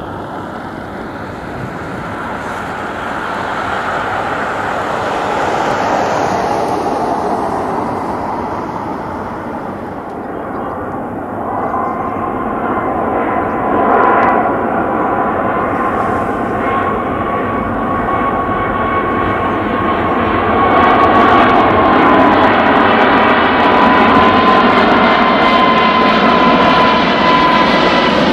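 Boeing 777-200ER jetliner on final approach, its jet engines growing steadily louder as it nears. A steady whine comes in about a third of the way through and holds to the end.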